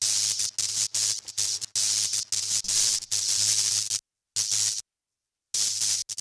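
Static-like hiss over a steady low hum, chopped by many abrupt dropouts like a glitch effect, with short silent gaps after about four and five seconds.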